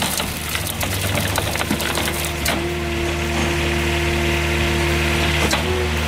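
Firewood processor running: a steady engine and hydraulic hum with a higher tone that holds for about three seconds in the middle, and scattered knocks and cracks of wood being cut and split.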